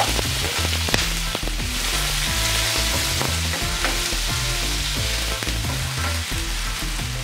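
Diced potato, onion and green chillies sizzling in hot olive oil in a nonstick frying pan while a wooden spatula stirs them, with a few sharp knocks near the start. Low notes of background music run underneath.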